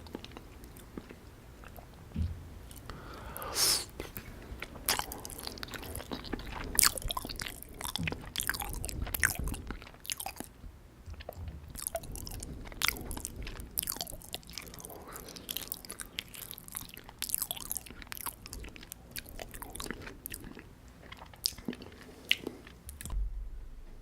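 Close-miked chewing of syrup-soaked gulab jamun, with many soft wet smacks and clicks of the mouth.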